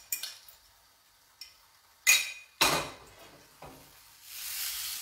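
A fork clinking and scraping in a ceramic bowl as beaten egg is poured into a hot frying pan, with two sharp ringing clinks about two seconds in. Near the end a hissing sizzle of the egg frying in the pan swells up.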